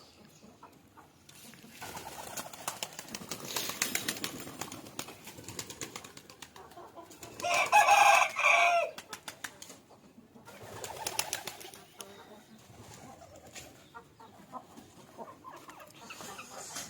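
Backyard pigeons and chickens: a few seconds of wing flapping and rustling, then a rooster crowing loudly once about eight seconds in, with a weaker call a few seconds later.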